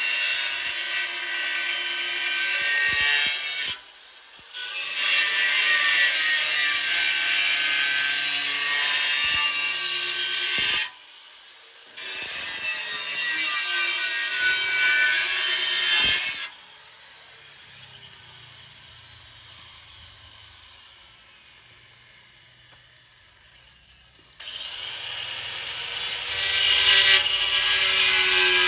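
Tool noise from tile work: rasping, scraping and cutting sounds in several loud stretches that stop abruptly, with a quieter stretch about two-thirds of the way through.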